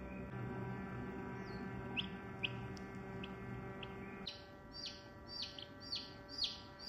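Chicken chicks peeping in an incubator: short, high, falling peeps, a few scattered ones first, then a quick run of about two a second from about four seconds in. A steady hum from the incubator runs underneath.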